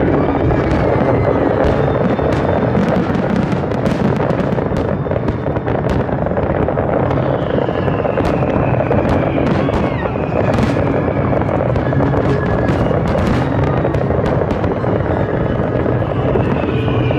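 Large aerial fireworks display: a dense, steady rumble of shell bursts with many sharp crackling pops, and a high falling whistle about seven seconds in and again near the end.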